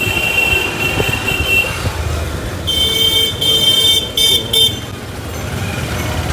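A vehicle horn honks in a string of short toots about three seconds in, over the constant rumble of riding a motorcycle through city traffic.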